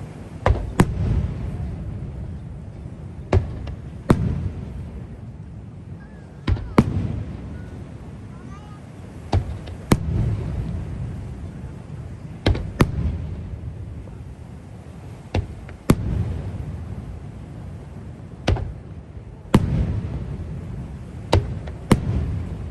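Aerial fireworks shells bursting, sharp bangs coming every two to three seconds, mostly in quick pairs, each trailed by a low rolling rumble of echo.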